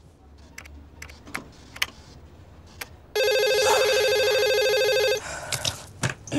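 A telephone ringing: one electronic ring lasting about two seconds, starting about three seconds in and cutting off suddenly. A few faint clicks come before it.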